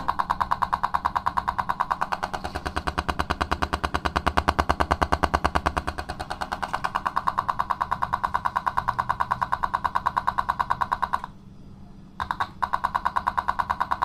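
Philips GTP 1720 car speaker driven directly by a remote control's circuit board, giving a rapid, even pulsing buzz while a button is held: the remote's coded signal made audible. It stops about eleven seconds in, sounds briefly, then starts again.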